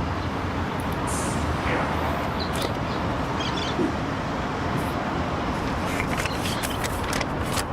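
Steady road traffic noise, with a few faint clicks and knocks over it.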